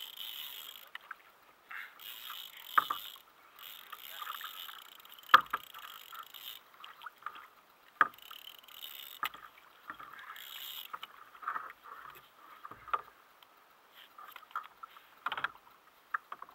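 Water splashing and lapping around a sit-on-top fishing kayak in patches, with about half a dozen sharp knocks and clicks on the hull and tackle.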